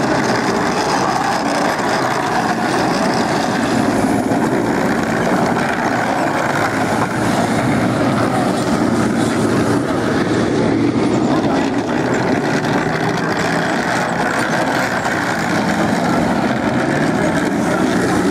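Tank driving on a dirt track: a loud, steady mix of engine and running-gear noise that holds without a break.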